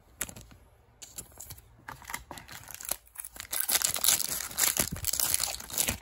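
Foil wrapper of a trading-card booster pack crinkling and tearing as the pack is opened. The crackling grows denser and louder in the second half.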